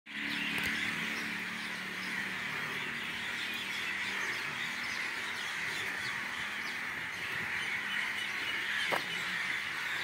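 Many birds chirping and calling at once, a dense continuous chorus with no single bird standing out.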